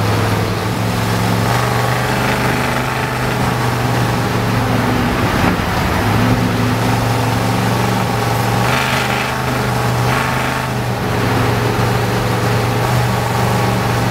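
Ford FE V8 of a 1973 Ford F100 pickup running at highway speed, heard from inside the cab: a steady low engine drone with road and wind noise, and two brief rushes of higher noise around the middle.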